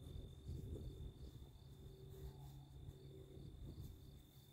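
Faint crickets chirping in an even, repeated pulse over a low rumble.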